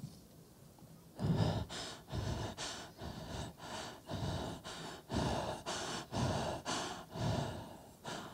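Rapid heavy panting, about a dozen loud breathy puffs at roughly two a second, starting about a second in.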